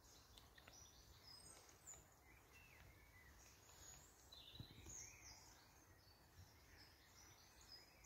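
Faint woodland birdsong: several small birds chirping and twittering in short, high, overlapping calls, over a low background rumble. A soft low bump comes a little past the middle.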